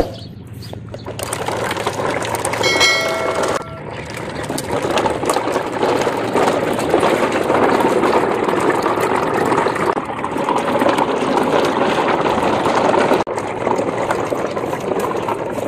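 Plastic toy truck and trailers rolling through shallow muddy water, giving a steady noise of wheels and water.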